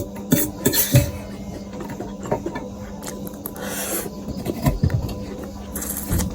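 Close-up eating sounds of keema noodles: wet chewing and mouth smacks, with a short slurp of noodles near the middle.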